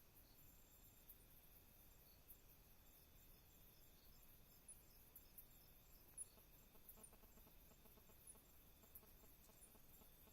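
Faint night ambience of insects chirping and trilling steadily, with scattered short high chirps and a soft pulsing call that comes in about seven seconds in.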